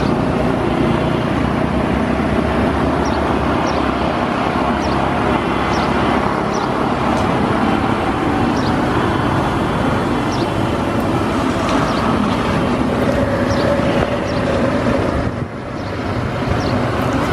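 ATR 72-600 turboprop taxiing on the runway, its two Pratt & Whitney PW127M engines and propellers running in a steady drone that dips briefly near the end.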